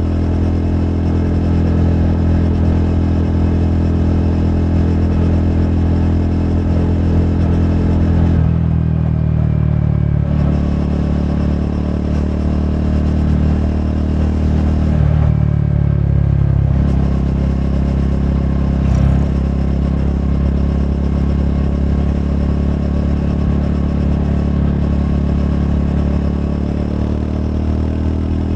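Triumph Scrambler 400X's single-cylinder engine running through its stock exhaust, steady most of the time, with the engine note changing twice, about a third of the way in and a little past halfway. A short sharp click about two thirds of the way through.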